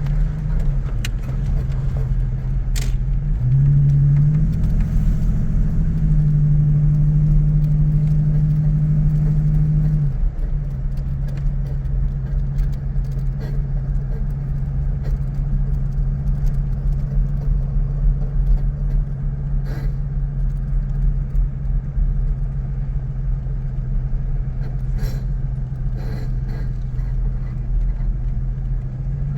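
1988 Toyota Pickup 4x4 running with a steady low drone, which steps up in pitch and loudness about four seconds in and drops back about ten seconds in. A few faint clicks are also heard. The owner is chasing a grinding, squeaky noise from the front passenger wheel.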